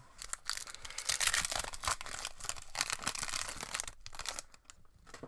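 Foil wrapper of a Pokémon Evolutions booster pack being torn open and crinkled by hand, a dense crackle that dies down about four seconds in.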